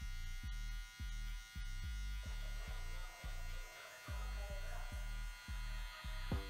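Cordless hair clipper (Gamma+ Boosted) with a 4.5 mm guard buzzing steadily. Its level dips and returns a few times a second as it is flicked up through the hair in short strokes, blending out the last line of a fade.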